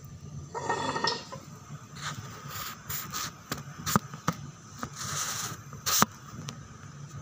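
Handling noise from a phone being set down and propped up: scraping and rubbing, then scattered sharp knocks, the loudest about four and six seconds in.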